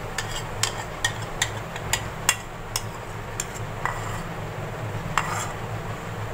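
Metal spoon clinking against a ceramic bowl and a plastic mixing bowl as yogurt is scraped out: about a dozen sharp, irregular clinks, the loudest about two seconds in, with one more about five seconds in, over a low steady hum.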